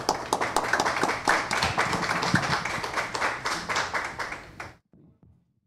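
Audience applauding with dense, uneven clapping that dies away about four and a half seconds in. The sound then cuts out abruptly to silence.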